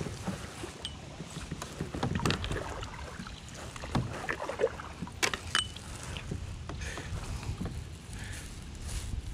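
Knocks and clicks of a spinning rod, reel and paddle being handled in a plastic sit-on-top fishing kayak, a few sharp ones between about two and six seconds in, over a low steady rumble.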